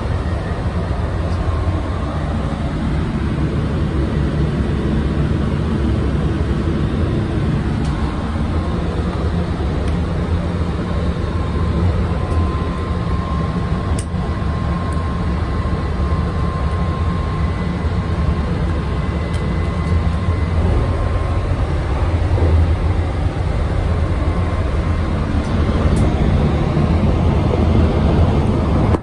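Steady low rumble of a Shinkansen N700A high-speed train running, heard from inside the car. There is a faint click about halfway through as a cigarette lighter is struck.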